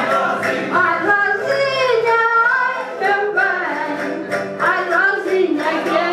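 A solo singer performing a lively folk song into a microphone, accompanied by strummed and plucked small stringed instruments keeping a steady beat.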